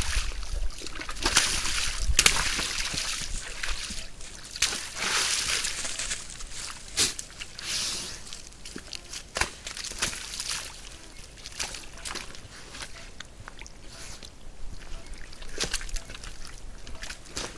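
Red deer wading in a muddy pool, their hooves sloshing and splashing through shallow water and sucking mud in irregular sharp splashes.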